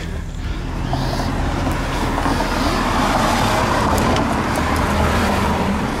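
A motor vehicle going by: a rushing road noise that swells over a few seconds and eases off near the end, over a steady low hum.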